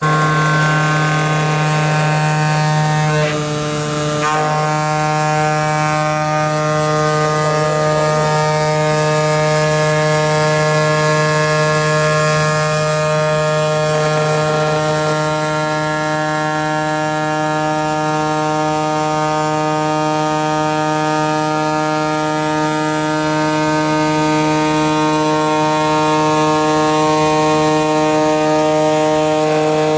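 CNC cutting machine running while it cuts a 3.5 mm asbestos sheet: a steady, pitched mechanical hum that falters briefly about three to four seconds in.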